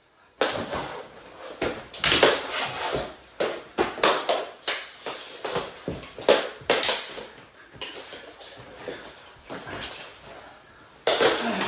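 Mini hockey sticks clacking against each other and knocking on a hardwood floor during play, with scuffs and thumps of players on the floor: a fast, irregular run of sharp knocks.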